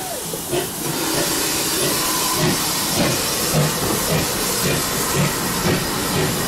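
Steam train departing: steady loud steam hiss from the GWR 0-6-0 pannier tank as its train of coaches rolls past, with repeated low thumps of the coach wheels about twice a second.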